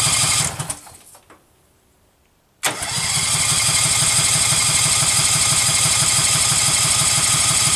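Case 446 garden tractor engine being cranked by its starter without firing, a fast even chugging of compression strokes. The cranking stops under a second in and starts again abruptly after a pause of about two seconds. The engine does not catch, which the owner puts down to no spark.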